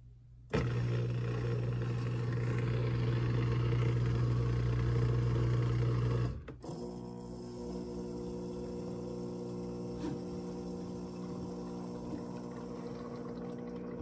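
COSTWAY portable countertop dishwasher starting its wash cycle: its pump kicks in suddenly with a loud hum and a rush of water. At about six seconds that stops and a quieter, steady motor hum takes over.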